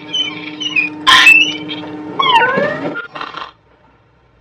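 A few cat-like meowing cries that slide up and down in pitch, with falling, yowling glides about two seconds in, over a steady low hum.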